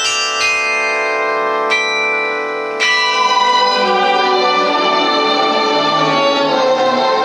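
Carillon bells played from the baton keyboard: three notes struck about a second apart, each left ringing. From about three seconds in, a sustained electronic string-like accompaniment joins beneath the bells.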